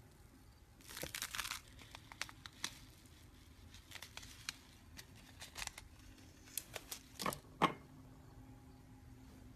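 Slime being squeezed and stretched: a flurry of crackling about a second in, then scattered sharp pops and clicks, the loudest near the end.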